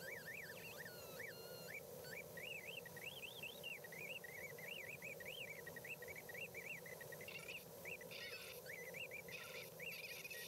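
Faint electronic glider variometer tone, a single pitch swinging rapidly up and down a few times a second as the climb and sink rate changes, over a steady faint hiss of airflow.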